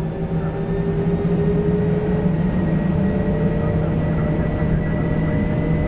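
Airbus A320's turbofan engines spooling up to takeoff thrust, heard inside the cockpit. The sound grows louder over the first second, then holds steady with a low hum and a whine that slowly rises in pitch.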